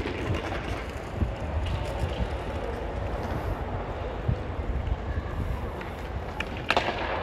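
Outdoor city ambience: a steady low rumble with a hiss over it, and a few sharp clicks near the end.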